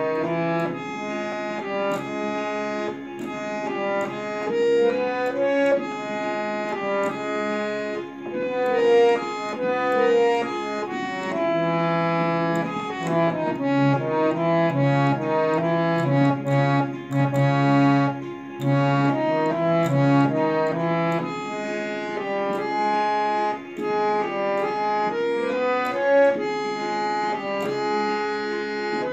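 Hand-pumped harmonium playing a continuous tune: a quick melody of reed notes over held lower notes.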